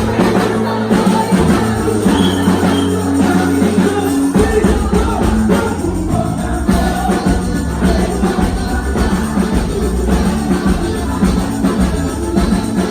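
Loud music with singing and percussion: held low notes for the first few seconds, then a steady beat comes in about four seconds in.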